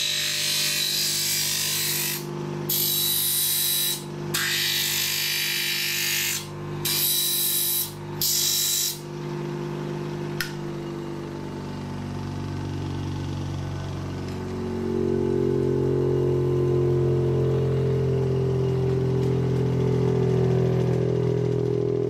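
Bench grinder with wood pressed against its wheel in several loud grinding bursts with short gaps, over its steady motor hum. After about nine seconds the wood is off and the motor runs on alone; its hum shifts in pitch and grows louder a little past halfway.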